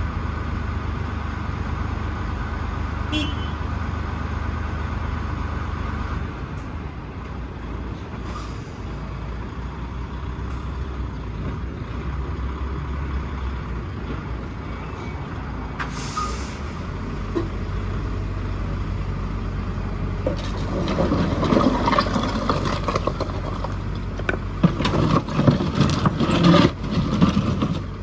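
Diesel engine of a JCB 4CX backhoe loader running steadily, with a short hiss about midway. In the last third, loud irregular clattering and knocking as brick and concrete rubble is scooped and loaded.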